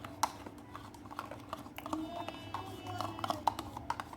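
Light, irregular clicks and taps of a spoon against a yogurt pot and mixing bowl as lemon yogurt is scooped into the cake batter.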